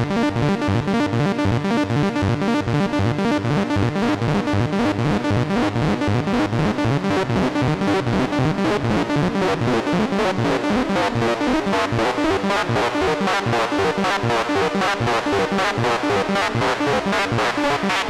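Behringer MonoPoly analogue synthesizer running a fast arpeggio in Poly mode, each note played by a different oscillator, with cross-modulation and reverb. The tone grows harsher and buzzier from about halfway as the frequency modulation is turned up.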